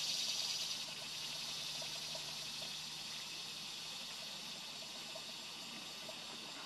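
A steady, high-pitched chorus of insects, a little louder in the first second and then easing slightly.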